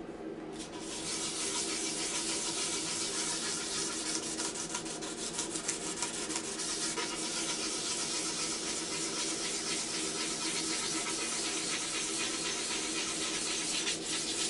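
Hand-sanding of a carbon road bike frame's paint: a steady scratchy rubbing of abrasive over the tube that starts about half a second in. Quick short strokes come for a couple of seconds around the middle. This is the surface preparation before painting.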